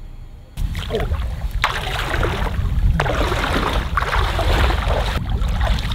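Loud, gusty wind-and-water noise, rumbling heavily at the low end, cutting in abruptly about half a second in.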